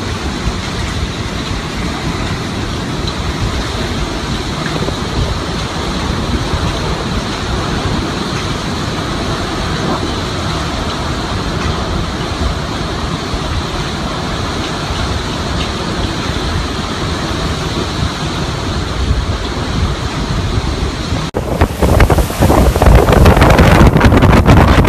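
Hurricane wind, a steady loud rushing noise. Near the end it cuts abruptly to louder, gusting wind buffeting the microphone.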